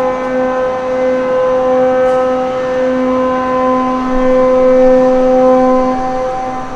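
Several ships' horns blowing long, steady blasts together, their different pitches overlapping in a chord as some notes stop and restart; the traditional salute to a newly launched ship. The lowest horn stops near the end.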